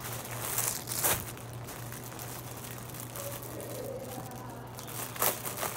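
Clear plastic bag around a shirt crinkling as it is handled, with sharper crackles about a second in and near the end, over a steady low hum.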